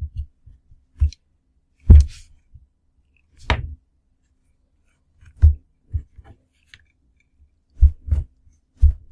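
Irregular clicks and knocks of crocodile clips and wire leads being handled and clipped onto power-supply wires, a string of short separate taps with gaps between.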